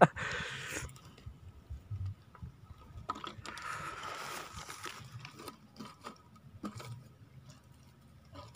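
Faint handling noise: scattered small clicks and light rustling, with two short stretches of soft hiss, one at the start and one about three seconds in.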